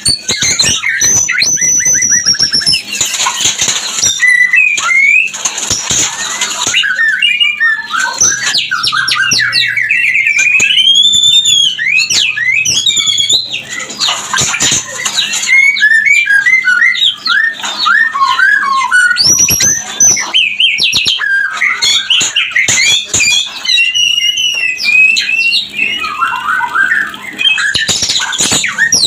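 White-rumped shamas giving their mating-season song and calls: a dense, unbroken stream of rapid whistles, fast trills and harsh squawks.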